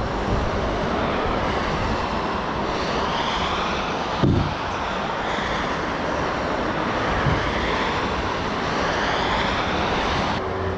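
Steady, loud machine noise with a few knocks, stopping abruptly near the end.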